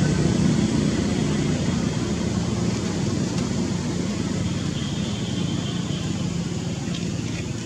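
Low rumble of a motor vehicle's engine going by, slowly fading away.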